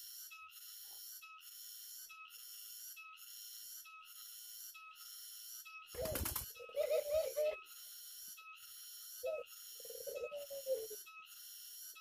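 Barbary doves cooing: low, wavering coos after the middle and again about three quarters through. A short loud rustle comes just before the first coos, over a steady high-pitched pulsing in the background.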